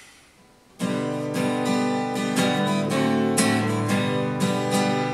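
Acoustic guitar strummed in a steady rhythm, starting a little under a second in after a moment of quiet room tone: the instrumental introduction to a hymn, before the singing begins.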